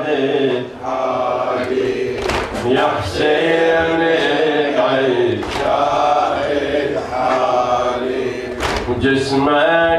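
A man chanting a latmiya, a Shia mourning lament, in long held melodic lines. A sharp slap sounds about every three seconds.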